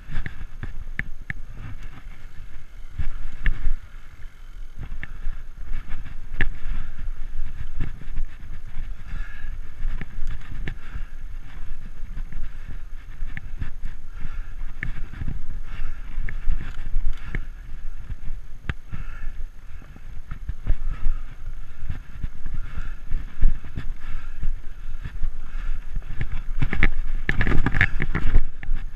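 Fat-tire mountain bike (Framed Alaskan) riding over dirt singletrack: a constant low rumble with frequent rattles and knocks from the bike over bumps, busiest and loudest near the end.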